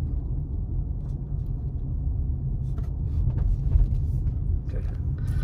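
Steady low rumble of a car driving on a paved road, heard from inside the cabin, with a few faint ticks about halfway through.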